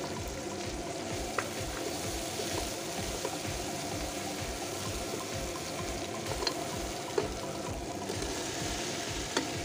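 Hot oil sizzling and frying in a pot of onions and tomatoes as crushed green chillies are stirred in with a wooden spoon, with a few sharp clicks and taps of the spoon against the pot. Near the end, chunks of boiled beef drop into the oil.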